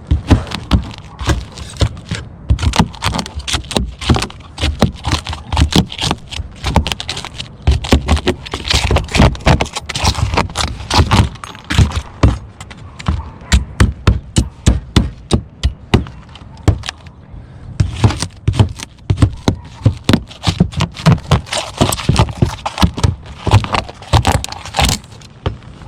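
Roofing tiles being worked by hand, a long run of irregular sharp clacks, knocks and scrapes, thinning out for a few seconds past the middle.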